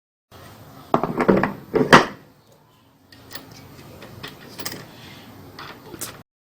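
Clattering knocks and clicks of washing-machine parts being handled and fitted during screwing-in. The loudest knocks come about one to two seconds in, followed by lighter scattered clicks.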